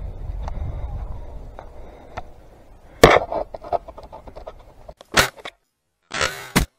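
Dry brush rubbing and snapping against a head-mounted camera as the wearer pushes into the branches: scraping and crackling with a few sharp knocks, the loudest about three seconds in and again about two seconds later. A low rumble of wind and movement runs under the first part, and the sound drops out completely for about half a second near the end.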